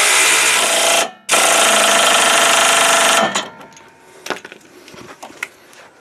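Pneumatic impact wrench (air gun) with a short socket hammering the lower nut of a new sway bar end link on a 2007 Honda Fit tight. It runs in two loud bursts with a short break about a second in, stops about three seconds in, and is followed by a few light clicks.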